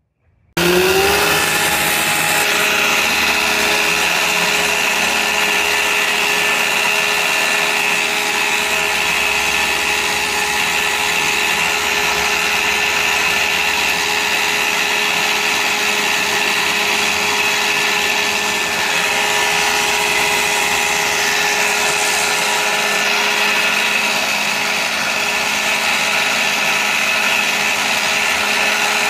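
Fiskars StaySharp reel mower converted to a Ryobi 40-volt battery motor, switched on about half a second in with a short rising whine as it spins up. It then runs at a steady speed with a constant whine while the spinning reel cuts grass.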